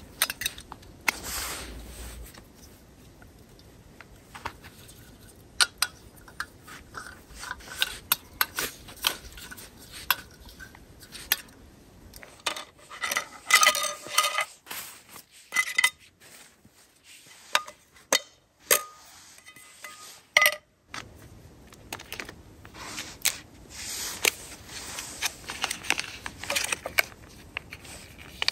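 Clinks, clicks and scrapes of camp cookware being handled: a canister stove being threaded onto its gas canister, then a small frying pan with a spatula and spoon knocking against it.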